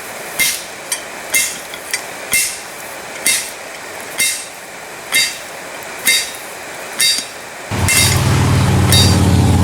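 Hand hammer striking hot steel on an anvil, about one blow a second, each blow ringing. Near the end a motor starts and runs with a steady, louder hum.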